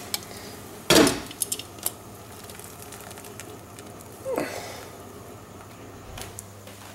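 Kitchen clatter of a glass pot lid and metal tongs knocking against a stainless steel pot: one sharp clank about a second in, then a few light clicks of the tongs as a cooked lobster is gripped and lifted out. A faint steady low hum runs underneath.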